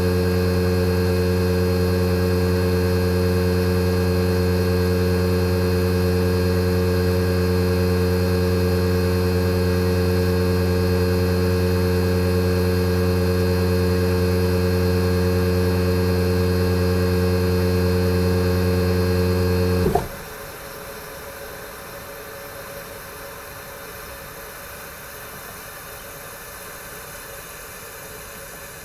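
Fujitsu General AO-C28H air-conditioner outdoor unit running in defrost mode, its inverter compressor giving a steady deep hum with a pitched drone. About twenty seconds in the hum cuts off suddenly, leaving a much quieter hiss.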